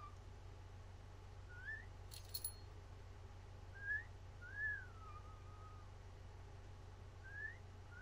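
A two-note wolf whistle, a short rising note then a longer rise-and-fall, whistled three times about three seconds apart. A brief metallic jingle comes about two seconds in.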